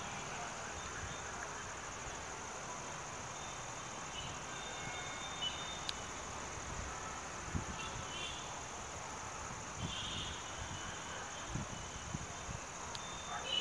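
Crickets calling in a steady, high-pitched shrill, with a few short, faint chirps over it.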